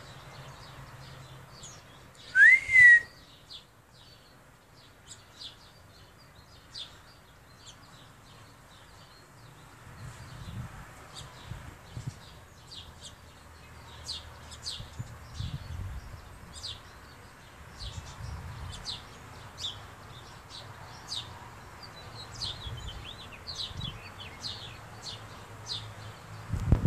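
American robin nestlings begging for food: many short, high, thin peeps that come more often after about ten seconds. About two and a half seconds in, one loud whistled note rises and then falls; it is the loudest sound.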